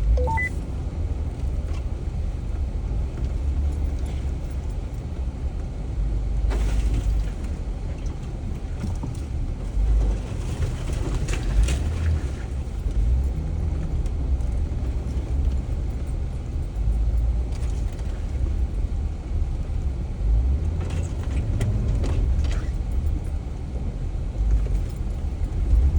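Jeep crawling slowly over a rough off-road trail, heard from inside the cab: a steady low engine and drivetrain rumble, with scattered knocks and rattles as it goes over roots and rocks.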